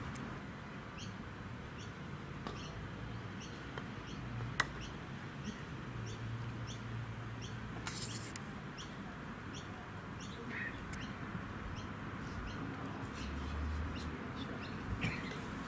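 A bird chirping over and over, short high chirps about twice a second, over steady outdoor background noise, with one sharp click about four and a half seconds in.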